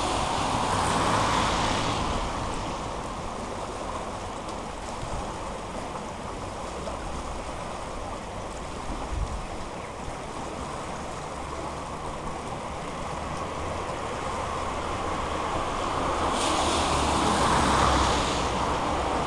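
River water flowing and rushing in a steady wash, louder in the first couple of seconds and again near the end.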